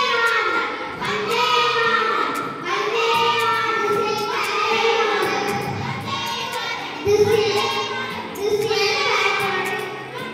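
A girl singing into a handheld microphone, in phrases of held, wavering notes about one to two seconds long with short breaks between them.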